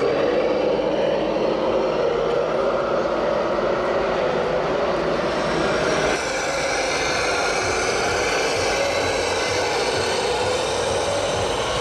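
Scale RC model trucks and construction machines running, a steady mechanical whine whose pitch drifts slowly up and down, with an abrupt change about six seconds in.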